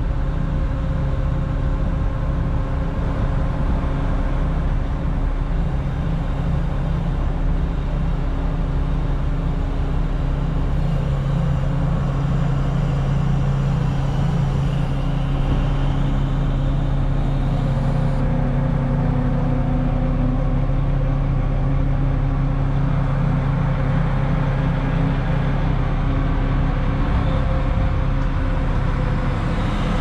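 Crane's diesel engine running steadily, heard from inside the operator's cab, as the crane is worked. Its low note gets stronger about ten seconds in.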